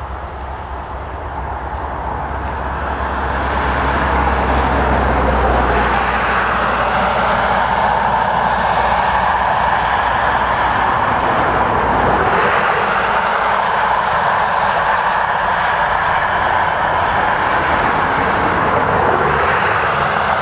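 Jet engine roar of a twin-engine Boeing 777 airliner on final approach, growing louder over the first few seconds as it nears, then holding steady as it comes in over the runway threshold.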